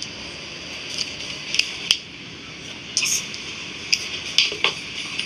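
A series of light, sharp clicks and taps, seven or so at uneven intervals, over a steady hiss.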